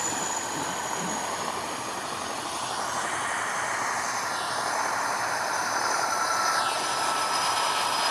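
Mi-8 helicopter's turbine engines running on the ground with the rotors turning: a steady rushing noise with a high, even whine.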